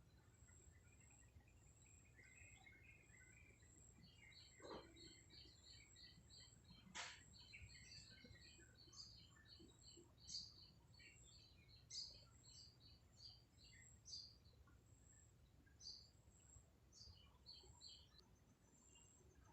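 Small birds chirping faintly: many short, high notes, some in quick runs, over a steady low background hum.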